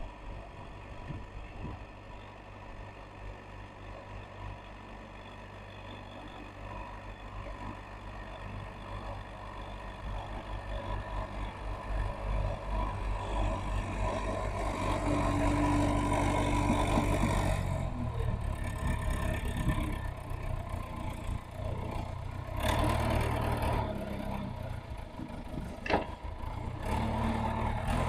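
Diesel engine of a working excavator running steadily, building up under load through the middle and then dropping back, with a single sharp knock near the end.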